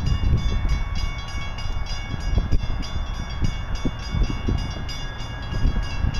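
Approaching Canadian Pacific freight train led by GE ES44AC and AC4400CW diesel locomotives: a steady low rumble with faint steady high tones above it.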